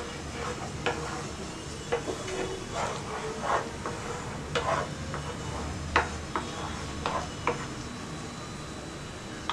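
Wooden spatula stirring and scraping thick, simmering grape jam around a nonstick pan, with irregular scrapes and taps against the pan over a steady low cooking hiss, as the jam is cooked down until thick. A sharp click right at the end.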